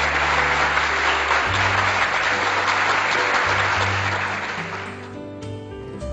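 Applause over background music with sustained bass notes; the clapping fades out about five seconds in while the music carries on.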